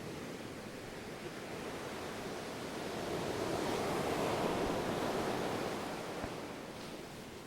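Ocean surf: a wave swells to its loudest about halfway through and then washes back and fades.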